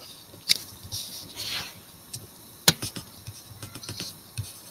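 Faint background hiss broken by a few sharp, isolated light clicks, two of them close together near the middle.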